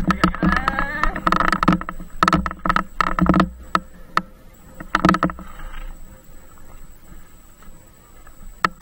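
Mountain bike rattling and clattering over rough off-road ground, with irregular knocks and clicks that come thick in the first few seconds and again about five seconds in, and a brief squeal early on.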